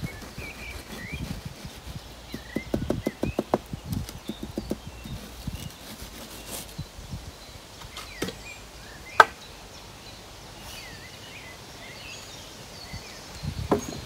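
A quick run of low taps as freshly poured concrete in a plywood pier form is worked by hand, then a single sharp knock about nine seconds in and a few more taps near the end. Small birds chirp throughout.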